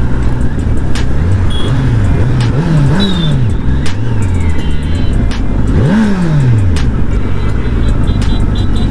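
Kawasaki Z900 inline-four on its stock exhaust, ridden with the revs rising and falling again and again through short pulls. A sharper rise and drop comes about six seconds in.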